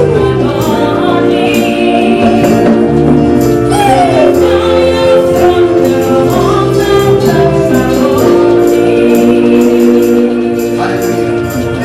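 Live gospel praise music: a choir singing with a tambourine shaking in rhythm.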